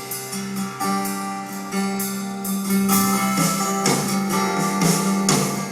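Live band music: an instrumental passage of a soft-rock ballad, guitar-led with sustained chords, between sung lines.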